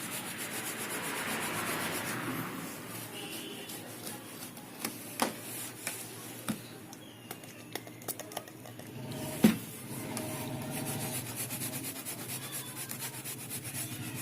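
A small brush scrubbing a printer circuit board to clean off leftover solder paste, a steady rubbing with a few sharp taps, the loudest about two-thirds of the way through.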